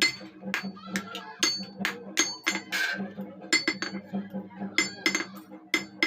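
Blacksmith's hammer striking iron, ringing metallic blows about two or three a second, over a steady low hum.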